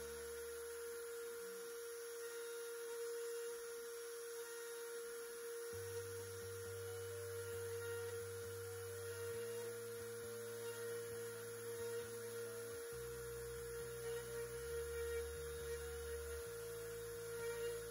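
CNC router engraving wood: the router spindle gives a steady high whine while the stepper motors hum low underneath, their pitch jumping to a new note every couple of seconds as the cutter changes direction along the outline.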